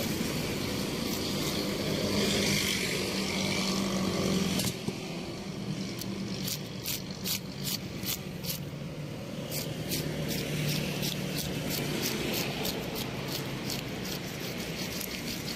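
Fish scales being scraped off a whole fish with a flat metal scaler on a wooden chopping block: short rasping strokes, which fall into a quick rhythm of about three a second from about six seconds in. A steady low hum runs underneath.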